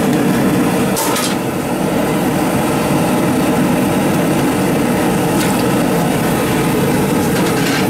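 Steady rushing roar of a restaurant gas burner flame under a steel wok, coming on suddenly, with a few light knocks as radish pieces go into the pan.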